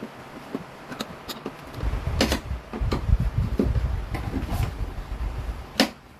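Knocks, clicks and a brief scraping sound from handling a window-type air conditioner unit and its frame, over an uneven low rumble. A sharp click comes near the end.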